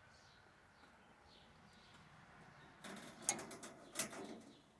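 Metal spring clip clicking and rattling against welded wire mesh as it is worked onto a cage door hinge by hand, a short cluster of clicks about three seconds in.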